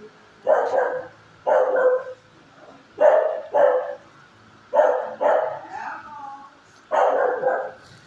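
A dog barking in a kennel: about seven loud barks, several in quick pairs, with short pauses between.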